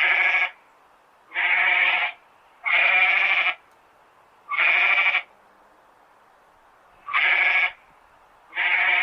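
A farm animal bleating over and over: six short, level calls, each about half a second to a second long, with pauses of about half a second to a second and a half between them.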